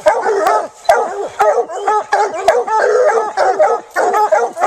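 Several coonhounds barking together at a tree in quick, overlapping chop barks with no pause. This is tree barking, the sign that the hounds have a raccoon treed.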